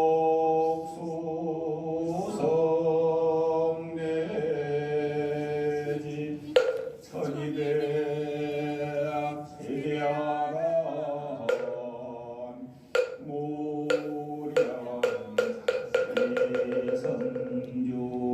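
A Buddhist monk chanting during the Saji late-morning service, in long held tones that slide between pitches, accompanied by knocks of a wooden moktak (temple wood block) that come more often in the last few seconds.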